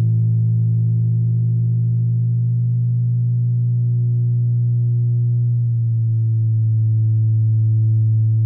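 Music: a sustained low drone tone with overtones, held steady, its pitch sinking slightly a little past halfway through.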